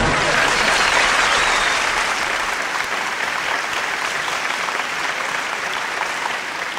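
Applause from a large crowd: dense, even clapping that starts as the music ends and slowly fades away.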